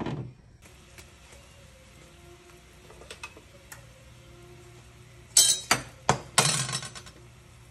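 Metal spoon and dishes clinking and clattering: a sharp knock at the start, a few light clicks, then a burst of loud clinks about five to seven seconds in.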